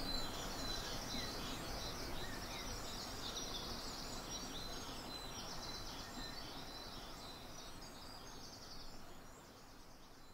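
Dawn chorus of many songbirds singing at once, with busy, high trills and phrases overlapping, over a steady low background rumble; the whole sound fades out gradually toward the end.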